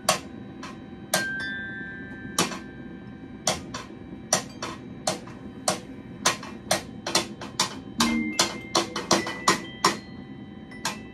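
Glockenspiel bars struck one note at a time with mallets, each strike sharp and ringing briefly. The notes are spaced out at first and come quicker in a cluster between about six and ten seconds in, with a duller, lower knock about eight seconds in.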